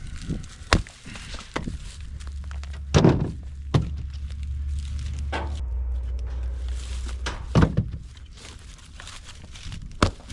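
Short pieces of seasoned firewood thrown into a pickup truck, landing with several separate wooden thunks at irregular intervals, with a low rumble underneath through the middle.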